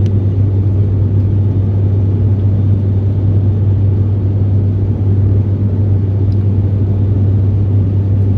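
Cabin noise of a high-wing turboprop airliner in flight: a loud, steady low drone built on one strong deep hum from the propellers and engine.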